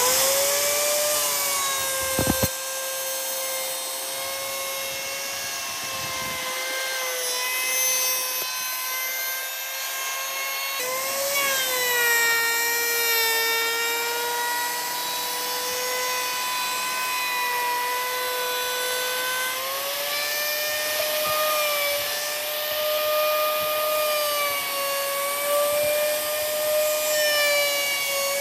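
An electric power tool spins up and runs with a steady whine against wood. Its pitch sags and recovers as it takes and sheds load, over a rasping cutting noise. There is a sharp knock a couple of seconds in.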